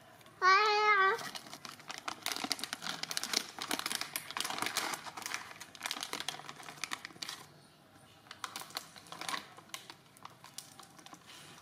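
A short, loud animal cry with a wavering pitch about half a second in, followed by several seconds of rapid crackling and clicking.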